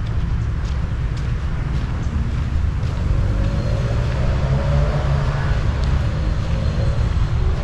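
A motor vehicle passing on a nearby road: its engine note swells and bends over a few seconds in the middle, over a steady low rumble.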